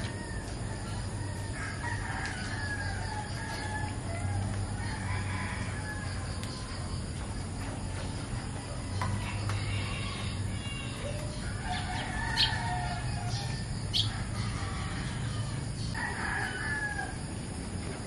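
Roosters crowing several times, over a steady low hum, with two sharp clicks in the second half.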